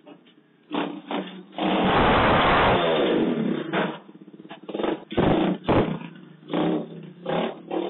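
Small dirt bike's engine revving hard for about a second and a half, then running in shorter bursts, with a couple of low thumps about five seconds in. Heard through a doorbell camera's tinny microphone.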